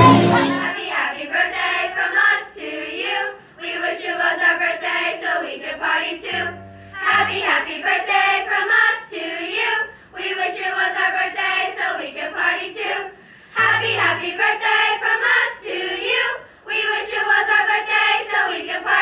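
A group of girls singing together as a small choir, in phrases of a few seconds with short breaks between them.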